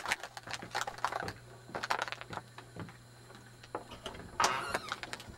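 Handling noise from a handheld camcorder being moved about against a window: irregular clicks, taps and rustles, with a longer, louder rustle about four and a half seconds in, over a faint steady electrical hum.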